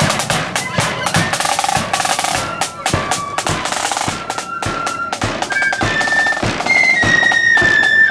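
Marching flute band playing: snare and bass drums beat a rolling march rhythm, and about halfway through the flutes come in with a high melody over the drums.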